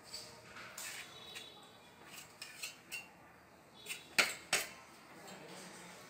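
Scattered light clinks and scrapes of a steel trowel against small stone pieces as they are set into a stone wall relief. Two sharp clinks about four seconds in are the loudest.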